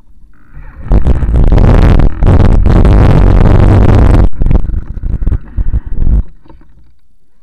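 Heavy wind buffeting and road rumble on a vehicle-mounted camera's microphone while moving along a gravel road, coming in loud gusts and dying away about six seconds in as the vehicle comes to a stop.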